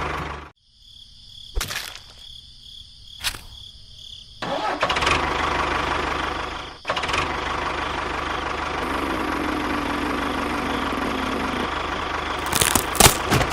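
A small motor runs steadily, stops, and after a few seconds of quiet broken by two clicks starts up again and keeps running.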